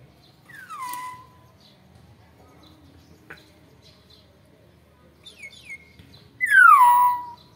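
Young Nias hill myna whistling: a falling whistle about a second in, a few short high chirps, then a louder falling whistle near the end.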